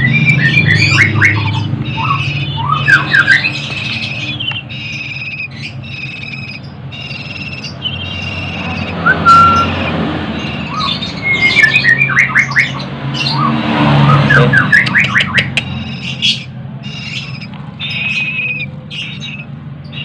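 Javan banded pitta nestlings squawking and chirping as they beg for food while being hand-fed: a string of short, high calls broken by quick runs of rising chirps, thickest about a second in, around three seconds in, and again late on.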